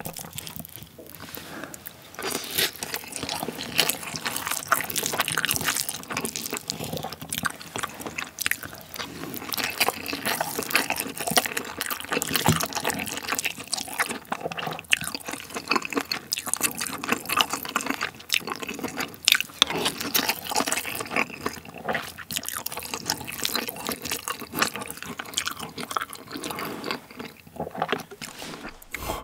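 Wooden spoon stirring and pressing through rice mixed with seasoned cockle sauce in a ceramic bowl. It makes a continuous wet, sticky squelching full of small clicks.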